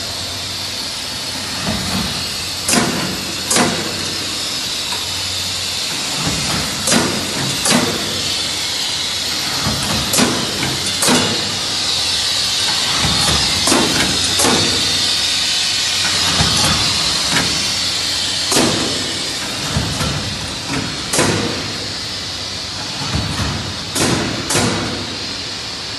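Ulma flow-wrapping machine running as it seals trays in plastic film: a steady hiss under sharp clicks that mostly come in pairs about a second apart, repeating every few seconds.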